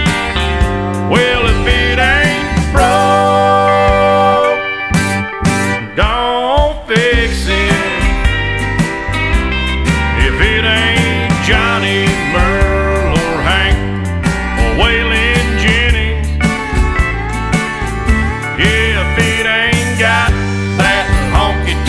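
Country music instrumental break with a steady drum beat and bass, and a lead instrument playing bending, sliding notes.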